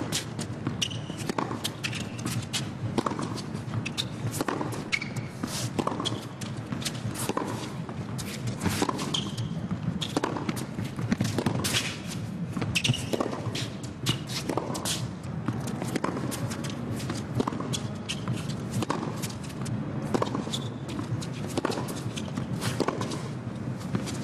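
Tennis ball struck by racquets back and forth in a long baseline rally on a hard court, a sharp hit about every second or so, over a steady low arena background.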